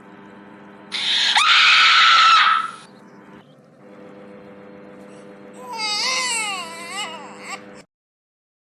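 Remade meme sound effects over a steady low hum: first a loud rushing noise with a quick upward sweep, then a wavering, high crying-like voice for about two seconds, after which everything cuts off suddenly.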